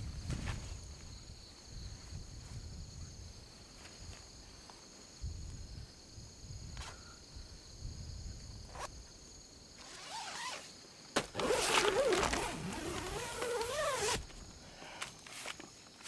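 Crickets trilling steadily in the night with light rustling and a few soft knocks; about eleven seconds in a zipper is pulled for about three seconds, the loudest sound, covering the crickets.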